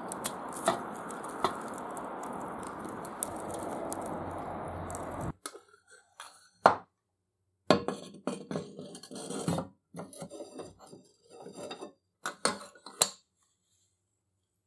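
A steady hiss with a few light clicks cuts off abruptly about five seconds in. After it comes a series of irregular metallic clinks and knocks, as of small metal parts being handled and set down.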